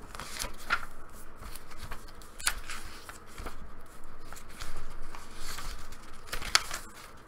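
Paper pages of a handmade booklet being turned and handled: a series of short rustling swishes, with a sharper tap about two and a half seconds in and another near the end.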